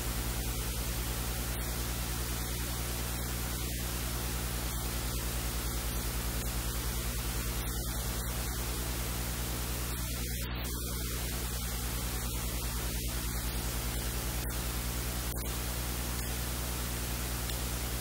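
Steady hiss with a low electrical hum underneath, a constant noise floor with no other sound standing out.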